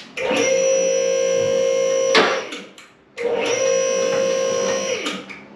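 Ideal MSC-6KLP single column car lift's electric hydraulic pump running in bursts of about two seconds, raising the car a step at a time; each burst stops with a short knock, and a third starts near the end.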